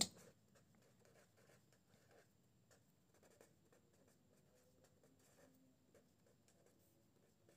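Faint scratching of a pen writing on paper in short, separate strokes.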